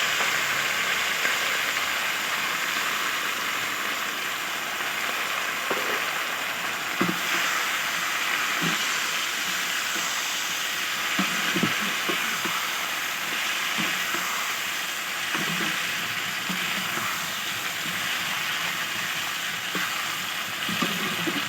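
Chicken and vegetables sizzling in hot oil in a pan with sauces just added, a steady hiss with occasional clinks and scrapes of stirring.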